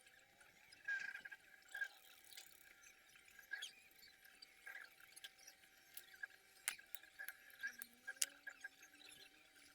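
Faint, scattered clicks and small scratching ticks from hands working the thin wires of a UTP network cable while splicing it.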